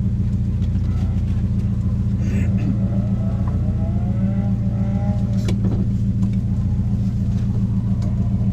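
Rally car's engine idling steadily at the stage start, heard from inside the cabin.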